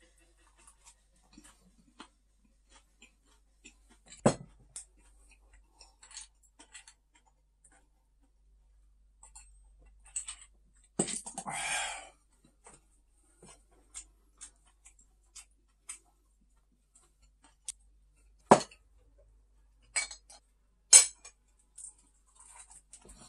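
Eating at a table: quiet chewing of lettuce-wrapped pork belly with scattered sharp clinks of glass and tableware, the loudest clinks about four seconds in and twice near the end. There is also a brief noisy rustle about eleven seconds in.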